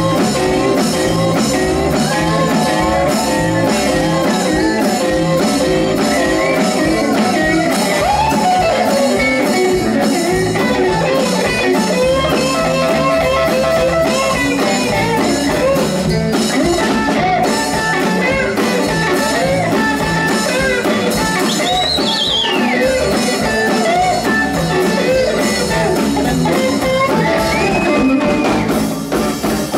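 Live blues band playing an instrumental passage: an electric guitar takes a lead with string bends over bass and drum kit.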